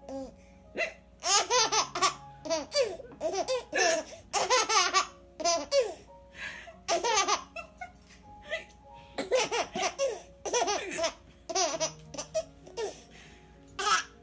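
A little girl laughing in repeated bursts, with hiccups mixed in among the giggles, some of them put on and many real.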